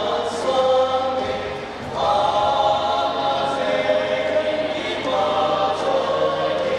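A male vocal group singing in harmony, holding long notes in phrases, with new phrases starting about two seconds and about five seconds in.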